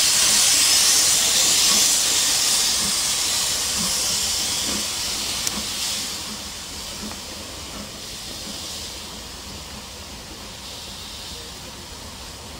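Loud hiss of steam escaping from a standing steam locomotive, easing off gradually after about six seconds.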